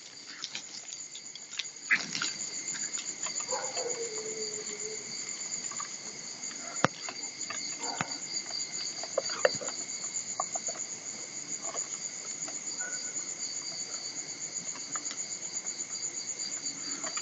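Night crickets chirping in a steady, fast-pulsing high trill. About three seconds in, a short call drops in pitch, and a few sharp clicks sound in the middle.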